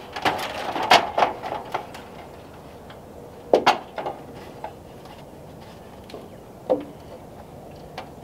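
Irregular knocks and clatter of wood during framing work: a busy run of knocks in the first two seconds, then a few single knocks spaced out.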